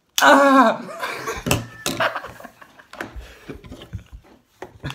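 A loud vocal exclamation right at the start, then laughter from two young men, broken by a few sharp clicks and taps.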